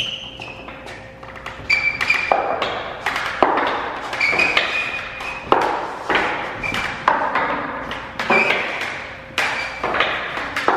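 Wooden pegs being knocked into the holes of a wall-mounted pegboard during a climb: a string of irregular thuds and knocks, several followed by a short high ring.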